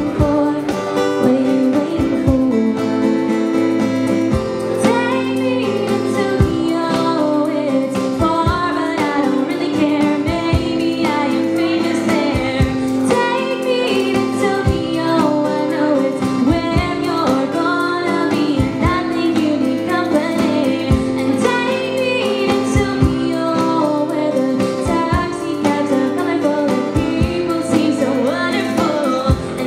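A woman singing a folk-pop song with a strummed acoustic guitar, kept in time by hand-played cajón beats.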